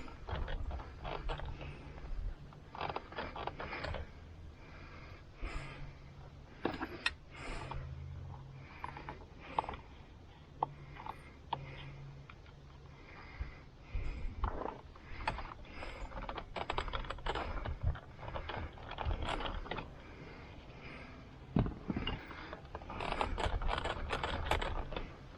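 Irregular clicks, taps and short scrapes of a screwdriver prying at the spring clips that hold the airbag in a pickup's plastic steering wheel, busiest near the end.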